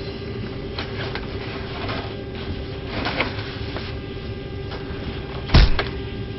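Steady mechanical hum with a constant tone, a few light knocks, and one heavy thump about five and a half seconds in.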